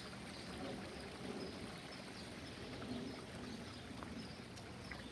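Steady trickle and splash of water from a backyard pond's water feature, with a few faint bird chirps.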